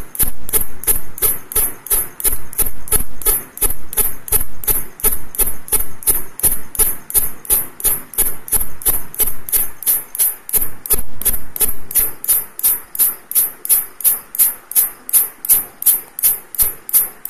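Green grasshopper chirping: a high, shrill pulse repeated evenly about three times a second.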